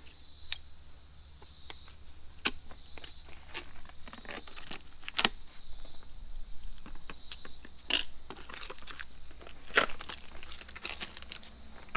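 Plastic blister pack of new EBC brake pads crinkling and crackling as it is handled and opened, with scattered sharp clicks.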